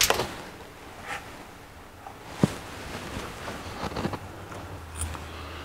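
Small carburetor parts handled on the bench: the choke housing, its gasket and screws, with light clicks and rustles and one sharp metallic click about two and a half seconds in.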